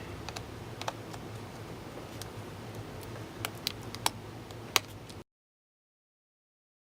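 A few sharp, sparse clicks of small laptop parts being handled as an SSD is fitted into a laptop chassis, over a steady low hum. The sound cuts to dead silence about five seconds in.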